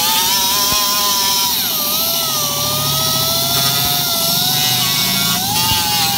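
Electric grinder running, grinding down a plastic weld on a motorcycle's welded plastic side cover. Its motor whine drops in pitch about a second and a half in and climbs back up about five and a half seconds in.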